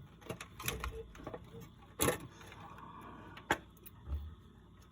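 Scattered clicks and knocks from handling the small parts of an old analog multimeter during reassembly, the loudest about two seconds in and a sharp click about three and a half seconds in.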